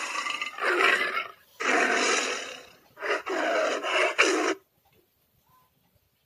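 A person's loud, rasping, roar-like sounds close to the microphone, in about four bursts of roughly a second each, stopping about four and a half seconds in.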